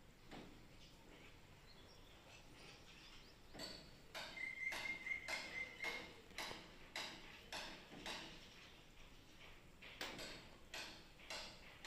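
Dough rounds deep-frying in oil on a low flame, a faint steady sizzle. Over it, a run of short, evenly repeated sounds comes about two to three times a second from about four to eight seconds in and again near the end, with a brief steady high tone in the middle of the first run.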